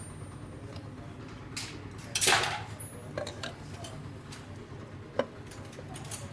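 Scattered light metallic clinks and knocks of metal engine parts and tools being handled, with one louder scraping clatter about two seconds in.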